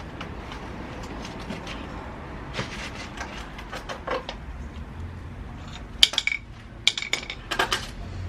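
Sharp metallic clinks and light knocks of metal parts and tools being handled during dirtbike rear-wheel work. They are scattered at first, then come in a bunch of louder, ringing clinks near the end.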